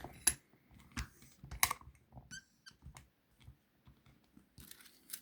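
Jiggler key being worked in a wafer lock: small, irregular metallic clicks and scrapes, a few a second. A short scuffing noise comes near the end.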